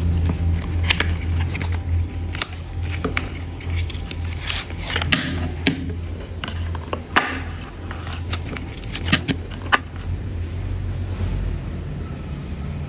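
Cosmetic packaging being handled close up: a cardboard box and its paper leaflet give short taps, clicks and crinkles over a steady low hum.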